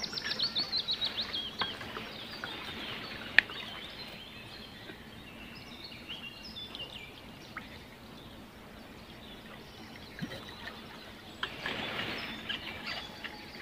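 Small birds singing and calling: a quick run of falling chirps in the first second and a half, then scattered short high notes over a steady background hiss. A single sharp click comes about three and a half seconds in.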